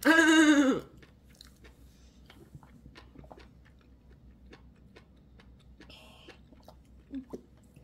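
A child's voice briefly at the start, then faint small clicks and mouth sounds of a young child drinking water from a mug, with a brief soft sip about six seconds in.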